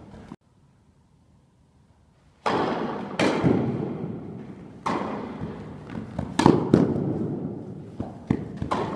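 Tennis ball struck by rackets and bouncing on an indoor court during a rally, each hit a sharp pop with a long echo in the big hall. Near silence for the first two seconds or so, then about seven hits and bounces at uneven spacing.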